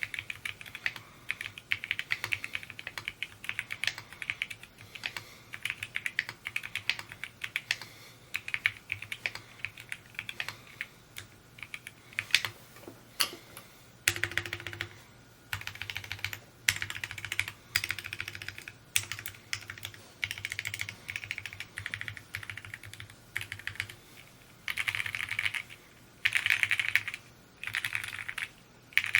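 Mode Encore 2 mechanical keyboard being typed on: a fast, continuous stream of key clacks for the first dozen seconds or so, then short bursts of keystrokes with brief pauses between them.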